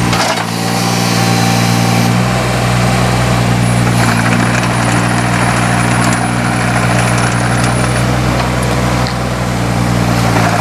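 Takeuchi TB016 mini excavator's Yanmar diesel running steadily under load as the machine travels on its tracks, getting louder in the first second or so. A thin high whine is heard for a few seconds in the middle.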